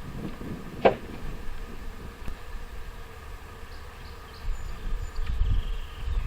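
Outdoor ambience: low wind rumble on the microphone, growing louder in the second half, with faint high chirps. One short sharp click comes about a second in.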